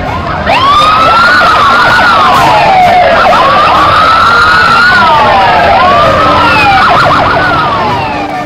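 Police motorcycle sirens wailing together, starting about half a second in, with three slow rise-and-fall cycles before fading near the end.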